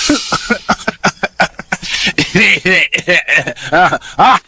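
A Muppet character's voice in a coughing fit: a rapid string of short, voiced coughs and sputters, about four or five a second.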